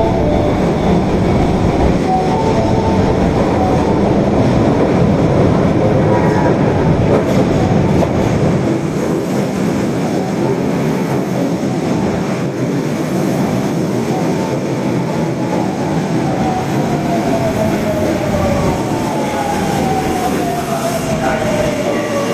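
Osaka Metro 22 series subway car running, a steady rumble of wheels on rails. In the last third the traction motors' whine glides down in pitch as the train slows.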